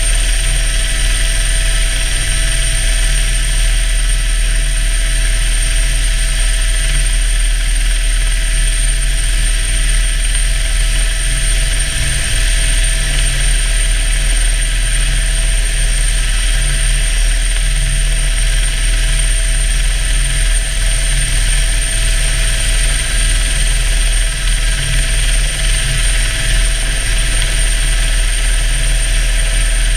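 Helicopter running steadily, heard from inside the cabin with the door open: a steady high whine over a low, pulsing rotor beat.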